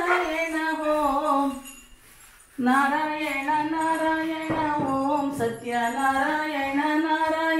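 A woman singing a Hindu devotional chant in long held notes, breaking off briefly about two seconds in and then going on.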